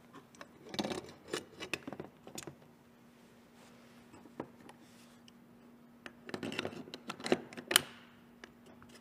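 Clicks, taps and small knocks of metal tool parts being handled: an electronic angle sensor and its cable being fitted into an aluminium camshaft-housing adapter of a valve-timing tool. The handling comes in two bursts, in the first couple of seconds and again about six to eight seconds in, over a faint steady hum.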